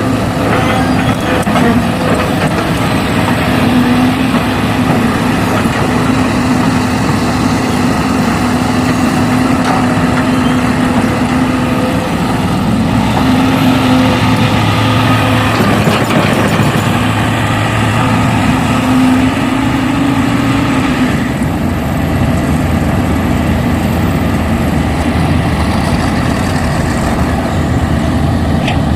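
Heavy vehicle engine running steadily. Its note shifts a few times and settles lower about two-thirds of the way through.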